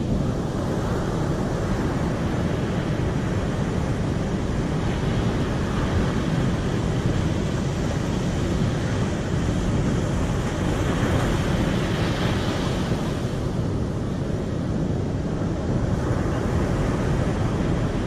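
Ocean surf breaking on a sandy beach, a continuous rushing wash of waves, with wind on the microphone adding a low rumble. The hiss swells through the middle as a wave breaks and washes up the sand, then eases off near the end.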